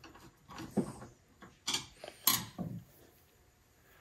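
A few light, separate clicks and knocks in the first three seconds from a hex driver and aluminium extrusion parts being handled while a corner screw is left just short of snug.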